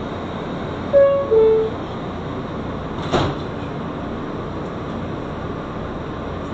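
Steady rumble of an R160 subway car in motion, heard from inside the car. About a second in, the car's PA sounds a two-note falling electronic chime, and about three seconds in there is a single brief clunk.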